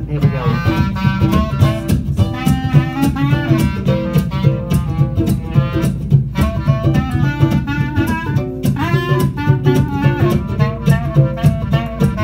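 Live instrumental music: a reed instrument plays a moving jazz-style melody over a steadily strummed mandolin.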